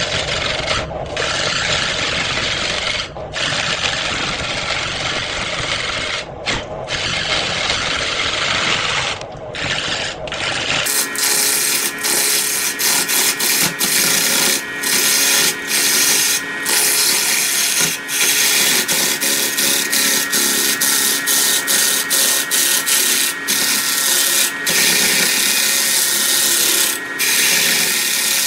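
A large wood blank spinning on a lathe while a long-handled gouge cuts into it: a steady hissing scrape of steel on wood, with short breaks where the tool comes off the work. About eleven seconds in the sound changes abruptly, becoming thinner and hissier with a faint steady whine beneath.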